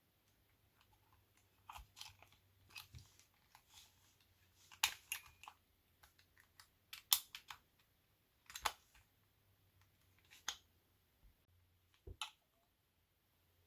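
Plastic housing of a NUK electric breast pump being pried apart by hand: a string of irregular sharp plastic clicks, snaps and creaks, the loudest about five and seven seconds in.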